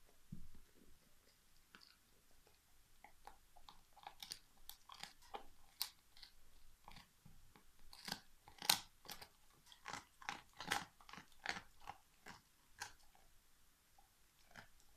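Alaskan Malamute gnawing a big turkey bone: a run of sharp, irregular crunches and cracks as the bone gives under its teeth, coming thickest and loudest in the middle.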